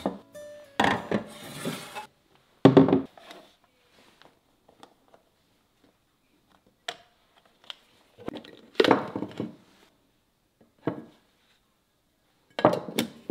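Food storage containers and their snap-on lids handled and set down on a wooden table: a handful of separate knocks and clatters, the loudest about three seconds in, with quiet gaps between.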